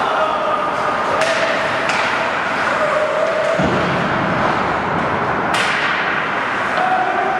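Ice hockey play in an indoor rink: skates scraping the ice, broken by a few sharp knocks of sticks and puck. The loudest knock comes about five and a half seconds in.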